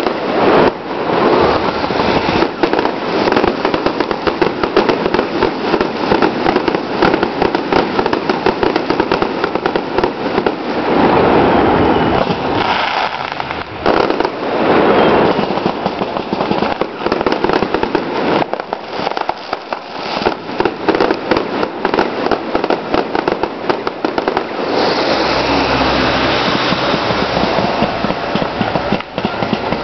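Fireworks display: a dense, continuous run of bangs and crackling from bursting shells. Near the end a steady low rumble joins in under the crackling.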